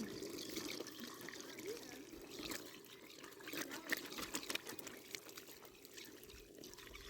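Liquid trickling and splashing into a container in small, irregular spurts, faint.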